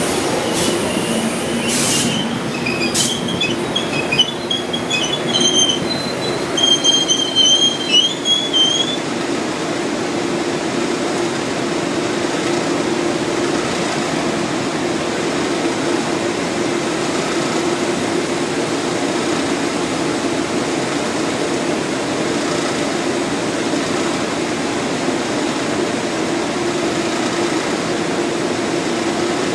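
NJ Transit commuter train coming to a stand at the platform, with high wavering squeals and a few clanks for about the first nine seconds. After that the standing train gives a steady hum.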